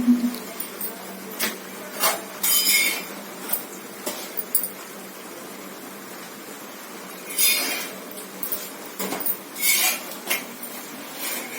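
Kitchen cooking sounds: utensils clinking and knocking against pots and pans, with three short hissing bursts.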